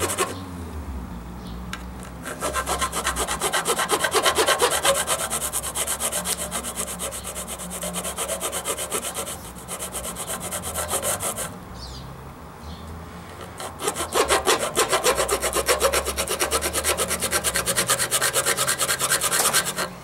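Steel hand file rasping back and forth on the steel muzzle end of an AK pistol barrel, smoothing down a sharp edge. The strokes come in long runs, with a brief pause a little before halfway and a longer one of about two seconds just after.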